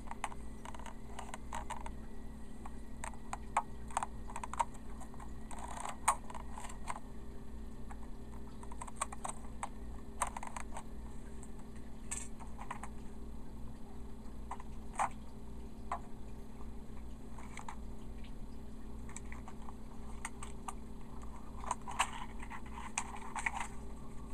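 Irregular clicks, taps and short rustles of a toy train and its packaging being handled during unboxing, over a steady low hum.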